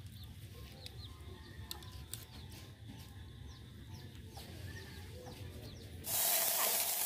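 Chickens clucking and chirping faintly, with a few soft clicks. About six seconds in, a louder steady sizzling hiss starts abruptly.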